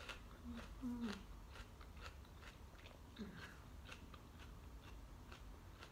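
Raw onion being chewed with the mouth closed: faint, irregular crunches, with a couple of short hums from the eater about a second in and again about three seconds in.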